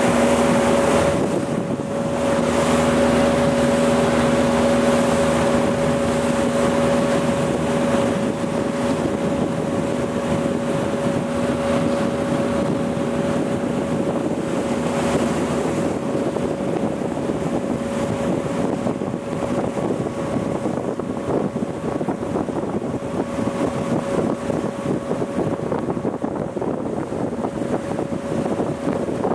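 Small boat's outboard motor running steadily, with water and wind noise on the microphone.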